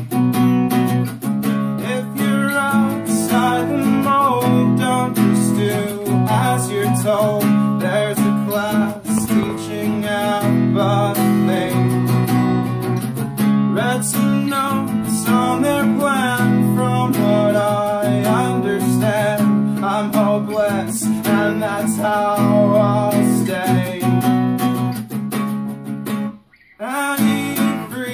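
Acoustic guitar strummed in chords while a man sings. The playing breaks off briefly near the end and then resumes.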